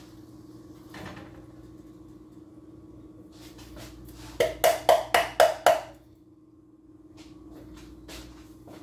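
Six quick knocks on a frying pan, about four a second, as something is tapped against it, over a steady low hum.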